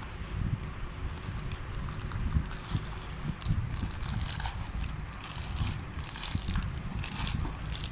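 Packaging rustling and crinkling in irregular bursts as a selfie stick is handled and taken out of its box.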